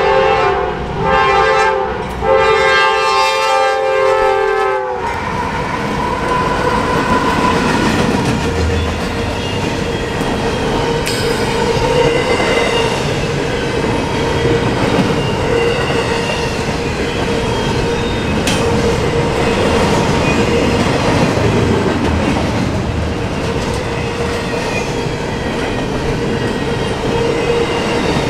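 A Norfolk Southern GE AC44C6M diesel locomotive's air horn sounds its crossing signal in several blasts, ending about five seconds in. Then the locomotives and a long train of double-stack container cars roll past close by: a steady rumble and wheel clatter with a thin steady tone and a couple of sharp clanks.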